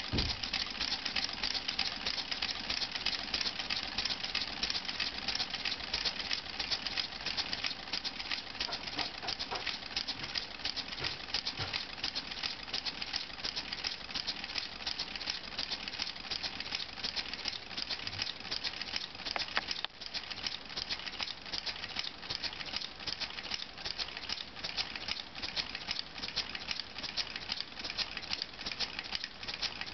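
LEGO two-cylinder pneumatic engine running fast: a steady, rapid clattering rattle of its plastic pistons, valves and flywheel.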